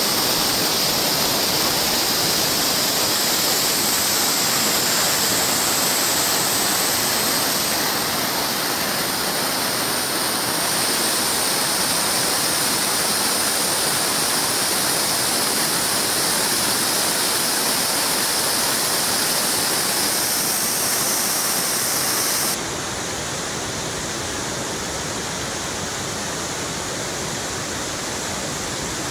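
Whitewater river rapids rushing steadily. About 22 seconds in the rush drops abruptly to a slightly quieter, duller sound.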